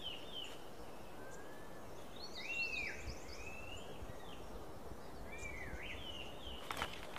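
Small forest birds chirping: repeated short calls that swoop up and down sharply, coming in several runs over a steady faint hiss of forest ambience. A few soft clicks near the end.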